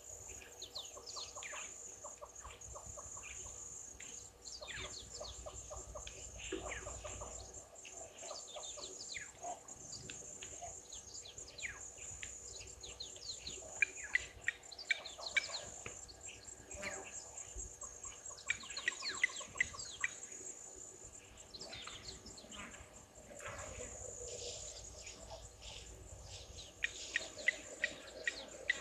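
Blacksmith lapwings giving their sharp metallic "tink" alarm calls in quick runs, several times, as a nyala comes close. Behind them there is a steady high insect drone and the chirps of other birds.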